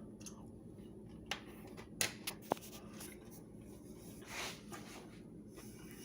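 Faint eating sounds as a piece of air-fried chicken thigh is tasted: a few light clicks between one and two and a half seconds in, and a soft breath later on.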